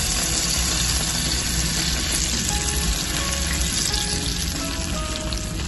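Beef stock poured into a hot frying pan coated with steak drippings, sizzling with a steady hiss as the liquid hits the hot pan.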